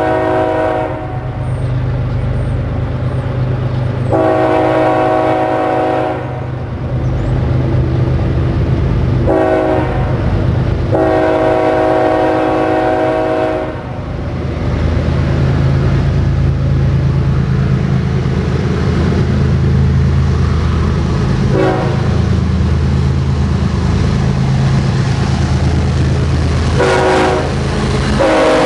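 BNSF freight train's diesel locomotive horn sounding the grade-crossing warning, long, long, short, long, over the drone of the approaching locomotive engines. The engine drone grows louder after the fourth blast. A brief toot comes about three-quarters of the way through, and another blast starts near the end as the locomotives pass close by.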